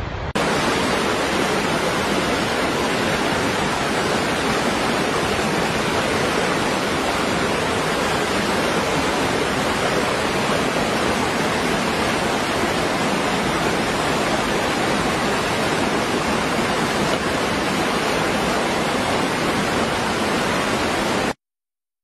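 Waterfall rushing, a steady and unbroken roar of falling water that cuts off abruptly near the end.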